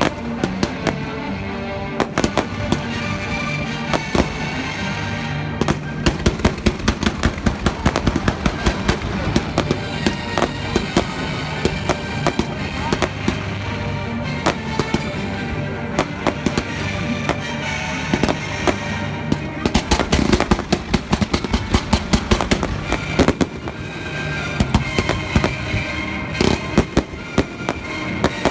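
Fireworks show: rapid barrages of aerial shells bursting and crackling, heaviest in two dense volleys, one a few seconds in and one past the middle, with music playing throughout.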